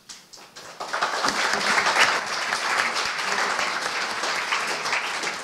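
Audience applauding: a few scattered claps at first, swelling into full applause about a second in, then easing off near the end.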